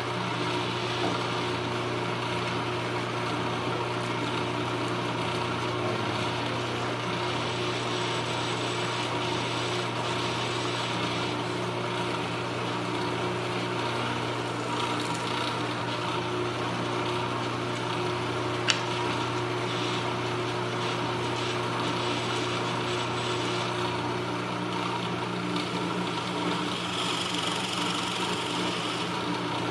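Drill press motor running steadily with a constant hum while its bit is fed down into a wooden block. A single sharp click comes about two-thirds of the way through.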